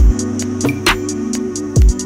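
Electronic background music: held synth chords over a deep kick drum, with sharp percussion hits.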